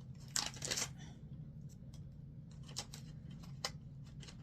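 Advent calendar packaging being handled while searching for a compartment: a short rustle about half a second in, then a few light clicks and taps.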